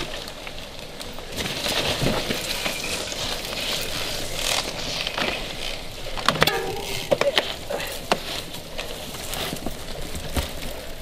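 Mountain bikes riding down a rough forest trail: tyres crunching and scraping over dirt, roots and twigs, with rattling clicks from the bikes. A cluster of sharper knocks and clatters comes about six to seven seconds in.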